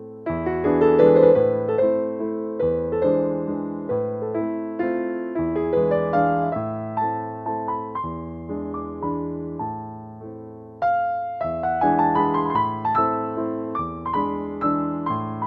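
Background music: a piano or electric piano playing a slow melody over held chords, one struck note after another.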